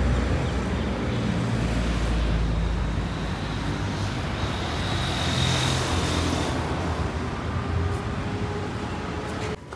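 Road traffic on a city street: a steady rumble of vehicle engines and tyres, with one vehicle passing more loudly about halfway through.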